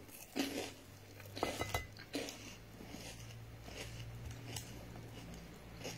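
A person chewing crisp fried akara (bean fritters), with a few short crunching and handling noises in the first two seconds, then quieter chewing over a low steady hum.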